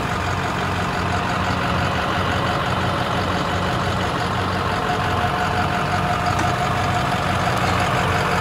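Diesel engine of a stuck International TerraStar medium-duty rollback tow truck running steadily as the truck tries to drive out of the dirt, creeping forward a few inches before its wheels spin.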